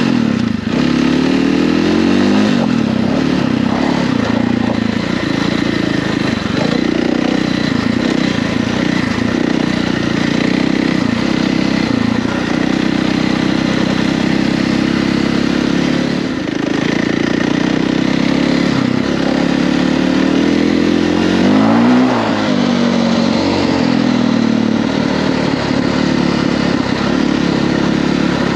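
Husqvarna FE450 dirt bike's single-cylinder four-stroke engine running under way, its pitch rising and falling with the throttle, with a sharp dip and rev about three-quarters of the way through.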